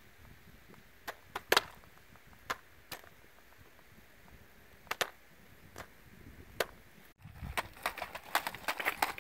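Jiffy Pop popcorn kernels popping one at a time in a foil pan heated on hot lava rock: about nine sharp pops scattered over seven seconds, the last few kernels of the batch going off. Near the end, loose lava rocks clatter as a metal scoop is worked among them.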